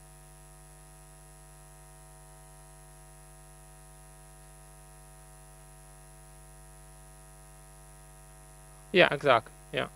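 Steady electrical mains hum, a low buzz with many evenly spaced overtones, running under a pause in speech; a man's voice briefly speaks a couple of short words near the end.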